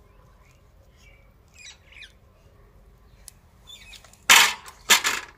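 Small birds chirping faintly in the background, then two loud, short rushes of noise about four and five seconds in, half a second apart.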